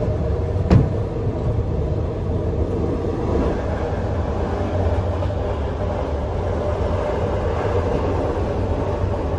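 Sleeper train carriage running on the rails: a steady rumble with one sharp wheel clack over a rail joint just under a second in.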